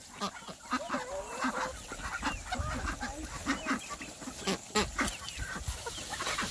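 A flock of ducks and chickens calling, many short quacks and clucks overlapping.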